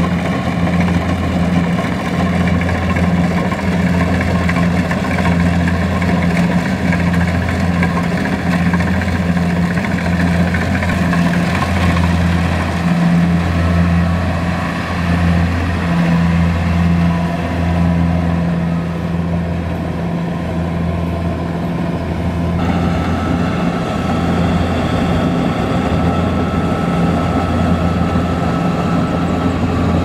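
Kubota DC-70 combine harvester's diesel engine running steadily under load as the machine harvests rice, a low steady drone. About three-quarters of the way through, the tone shifts abruptly and a thin higher whine joins it.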